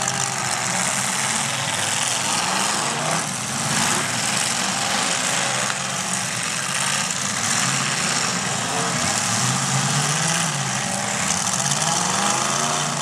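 Several demolition derby cars' engines running together, revving up and down unevenly over a dense, steady din.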